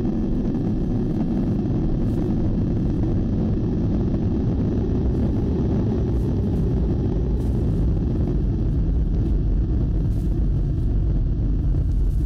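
A steady, loud low rumbling drone, dense and even throughout, with no screams or voices.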